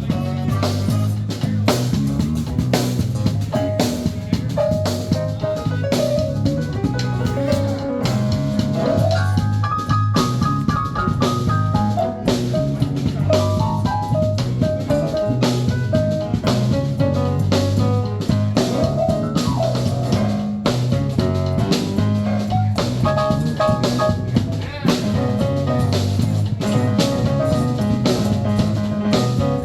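A band playing instrumental music: a drum kit keeping a steady beat under bass notes, with a melodic lead line over them.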